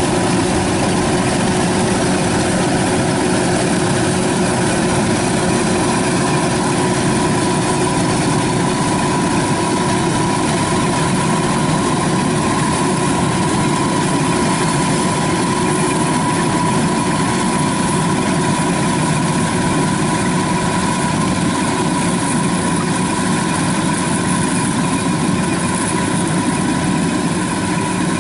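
Kubota DC-93 rice combine harvester running steadily while working: a constant diesel engine drone with a steady high whine from the machine.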